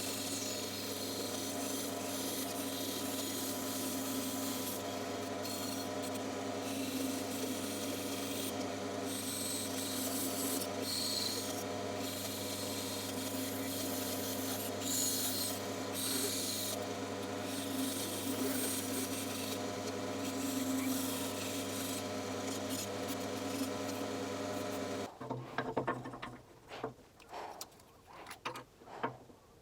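Bandsaw running and cutting wood, a steady motor hum under the rasp of the blade through the board. The sound cuts off abruptly near the end, followed by a few scattered knocks.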